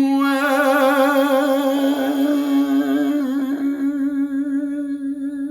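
A man singing solo, holding one long steady note with a slight vibrato that slowly fades.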